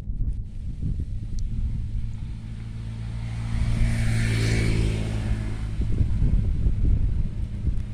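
A motor vehicle passing by: engine and road noise swell to a peak about four seconds in and then fade, over a steady low rumble.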